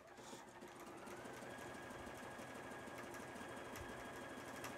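Juki HZL-F600 computerized sewing machine running a stretch stitch, building up over about the first second to a steady sewing speed.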